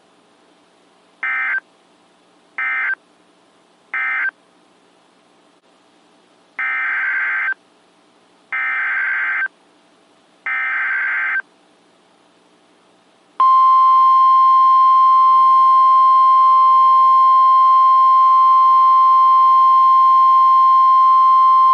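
NOAA Weather Radio Emergency Alert System tones: three short buzzing data bursts ending the previous warning, then three longer SAME header data bursts announcing the next alert, then the steady 1050 Hz warning alarm tone, which starts about two-thirds of the way in and holds.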